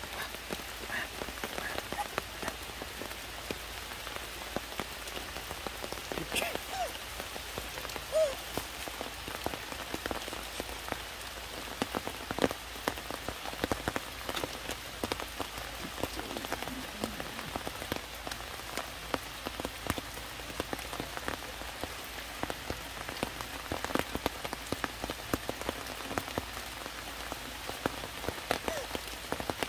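Steady rain falling on leaves and rock, an even hiss dotted with many sharp ticks of single drops striking.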